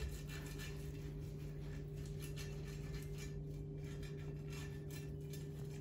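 Silicone pastry brush stroking oil over a glass baking dish: faint, irregular rubbing strokes over a steady low hum.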